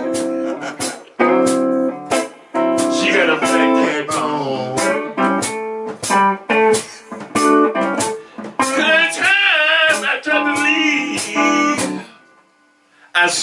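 Blues harmonica played through a handheld microphone cupped against it, over a blues backing: held notes that bend and waver in pitch. The music breaks off for about a second near the end.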